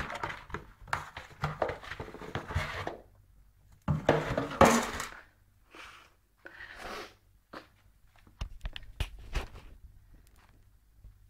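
A cardboard box scraping and rustling against a wooden floor in several noisy bursts, the loudest about four to five seconds in, followed by scattered light taps and knocks.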